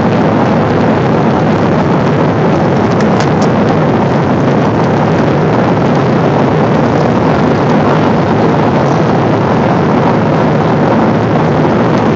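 Steady in-flight cabin noise of a Boeing 777 airliner: the hiss of jet engines and airflow heard inside the cabin at a window seat.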